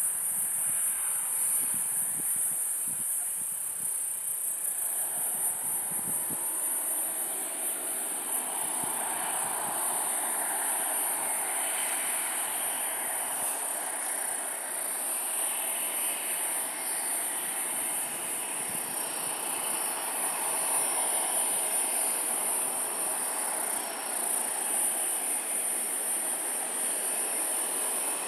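Single-engine light aircraft on a dirt airstrip, its engine and propeller a steady drone that grows louder from about five seconds in as the plane comes closer, over a continuous high insect buzz.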